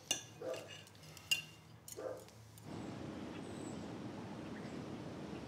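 A few clinks of cutlery on plates and dishes, then, from about halfway through, a steady city background hum.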